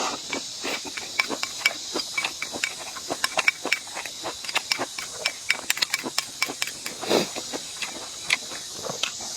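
Close-up eating sounds: chewing and mouth smacking with many quick, irregular clicks, over a steady high hiss.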